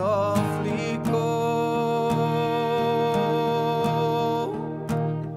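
Background music from a song soundtrack: after a wavering note near the start, a long steady note is held through the middle and fades away near the end.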